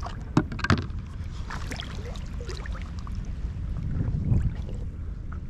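Water splashing and dripping around a stand-up paddleboard as it is paddled on calm water, with two sharp knocks about half a second in and a swell of low water sound around four seconds in, over a steady low rumble of wind on the microphone.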